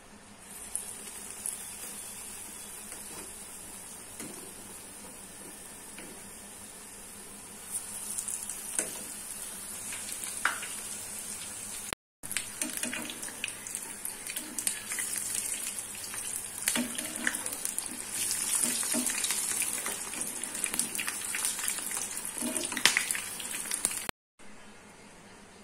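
Battered aloo chop (potato croquettes) deep-frying in hot oil: a steady high sizzle that starts about a second in and grows louder as more pieces go into the pan. Occasional sharp clicks and taps of the spoon against the pan, and two brief breaks in the sound.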